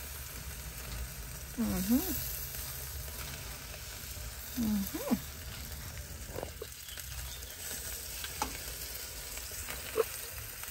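Sausages sizzling on a grill grate over an open fire, a steady frying hiss, with a few sharp clicks in the second half.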